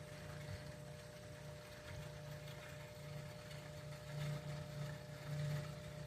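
Faint, steady low hum of an aquarium filter pump running, with a thin steady tone over it.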